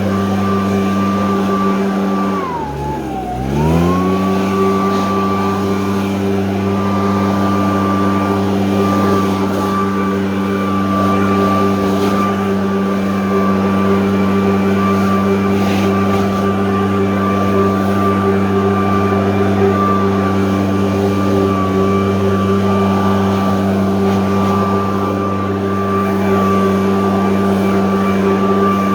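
85.5cc engine leaf blower running steadily at high revs. About two and a half seconds in, the throttle is eased off: the revs drop sharply, then climb back to full speed about a second later and hold there.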